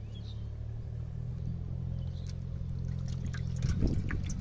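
Live fish splashing and flapping in shallow water in a metal basin, beginning about three and a half seconds in, over a steady low hum.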